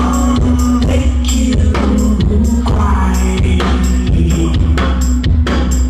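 Live band music played loud through a venue sound system: a steady drum beat over deep, heavy bass and sustained instrument tones.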